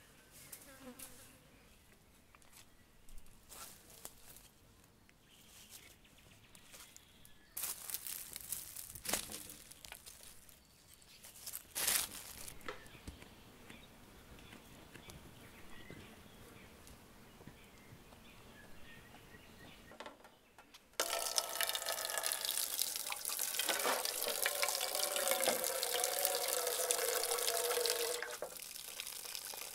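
Water running and splashing as bunches of fresh herbs are rinsed over a metal pot. It starts abruptly about two-thirds of the way in, is the loudest sound, and stops shortly before the end. Before it there are only scattered clicks and rustles.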